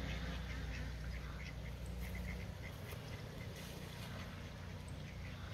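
Ducks quacking in a run of short calls, thinning out after about three seconds, over a steady low rumble.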